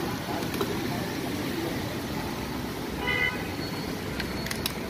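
Steady street traffic noise from passing motorbikes and cars, with a short vehicle horn toot about three seconds in.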